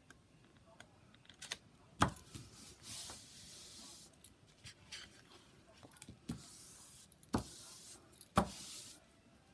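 Handling noises at a craft table: a few sharp knocks of small things being set down, and two stretches of rustling about a second long or more.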